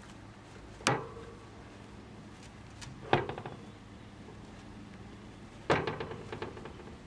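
Three sharp knocks, about a second, three seconds and six seconds in, the later two trailing off in a brief rattle of smaller clicks, over a faint steady hum.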